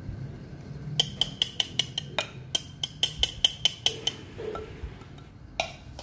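Quick metal taps with a ringing tone, about five a second for some three seconds, from kitchenware knocking on a stainless steel strainer and mixing bowl; one more knock comes near the end.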